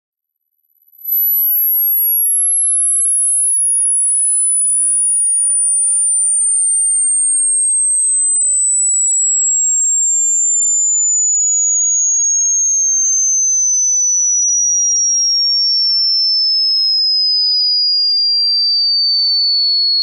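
Pure sine test tone of a hearing-test frequency sweep, fading in about a second in at a very high pitch and gliding steadily down to about 4.8 kHz at an even, loud level.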